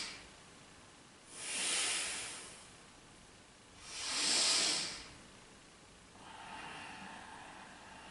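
A person breathing forcefully in time with leg lifts: two strong, hissing breaths about two and a half seconds apart, then a fainter, longer breath near the end.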